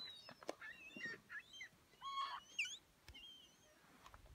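Faint, scattered bird calls: short chirps and quick whistled glides, up and down in pitch, with a couple of light clicks in the first second.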